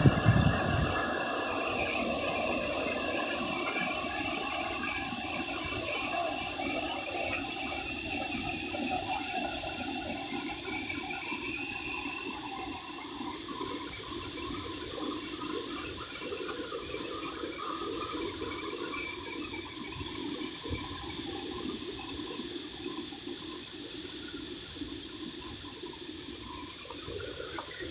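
Stream water rushing steadily near the waterfall's source.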